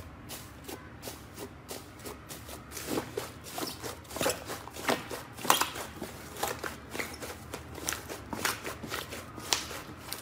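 Thick fluffy slime being pressed, torn apart and kneaded by hand, giving many short irregular crackles and pops that come more often and louder from about three seconds in.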